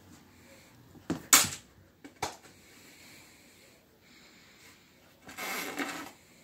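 A small metal chain clinking sharply a few times about a second in, once more just after, then rattling and scraping for nearly a second near the end as it is dragged.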